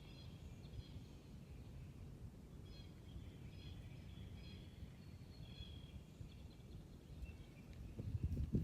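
Faint outdoor ambience: small birds chirping in short calls every second or so over a steady low rumble. A louder low rumble swells near the end.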